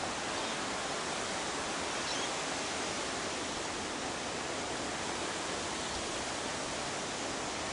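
Steady rushing wind, an even roar with no breaks, from a very windy day.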